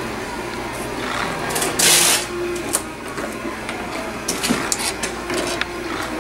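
Steady machine hum, with one short burst of hissing about two seconds in and a few sharp clicks near the end.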